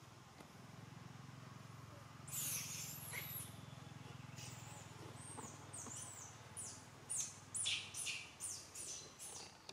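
Birds chirping: a high call a couple of seconds in, then scattered downward-sliding chirps and, near the end, a quick run of short high chirps about three a second, over a faint low hum.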